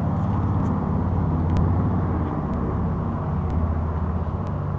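2014 Chevrolet Camaro SS's 6.2-litre V8 engine and exhaust running at low revs as the car rolls slowly, a steady low rumble that rises and falls a little in pitch. Faint ticks come about once a second.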